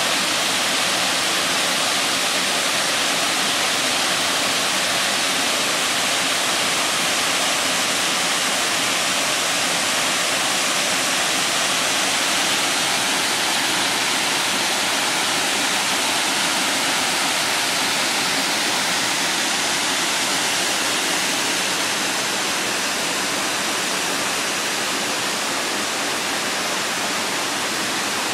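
Tiered waterfall pouring over rock ledges: a steady, even rush of falling water, a little softer for the last few seconds.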